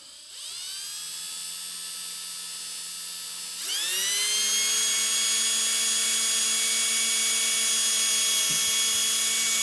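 Electric drill with a number 32 bit starting slowly into a rifle's wooden stock, its motor whining steadily at low speed. About three and a half seconds in it speeds up to a higher, louder, steady whine as the bit works toward the metal barrel tenon.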